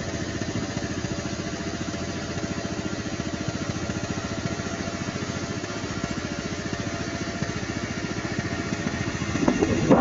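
An engine idling steadily with a fast, even pulse. Near the end, wind buffeting the microphone grows louder.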